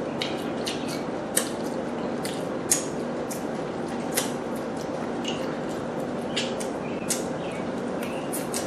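Close-miked eating sounds of lobster: wet clicks and smacks of the mouth chewing the meat, with the shell being picked apart by hand. Sharp clicks come every second or so over a steady background hiss.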